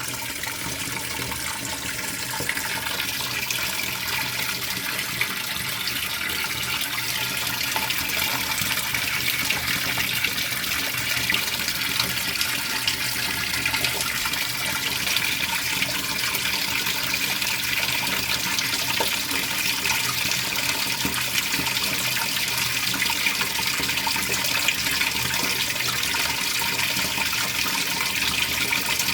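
Water pouring into the tub of a Speed Queen top-loading washing machine as it fills, a steady rush that starts at the beginning and grows a little louder over the first several seconds.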